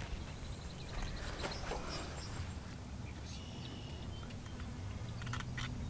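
Quiet outdoor background: a steady low rumble with a few faint clicks and a brief thin high tone about three seconds in, and a low hum that comes in about halfway through.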